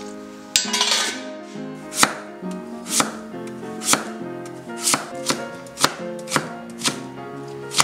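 Cleaver chopping kohlrabi into sticks on a wooden cutting board: sharp knocks of the blade against the board, about one a second at first and quickening to about two a second in the second half, over background music.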